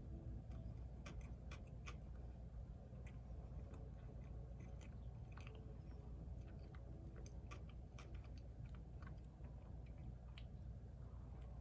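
A person chewing a loose meat sandwich close to the microphone, with many small, irregular wet clicks of the mouth.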